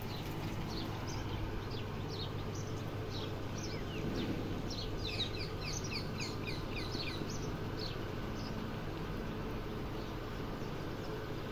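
Birds chirping: short, high, falling chirps scattered throughout, with a quick run of them in the middle, over steady background noise.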